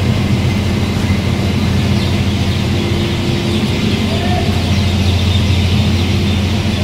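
Core board paper machine's dryer section running: a steady, loud industrial drone with a deep hum and a steadier, higher tone that comes and goes.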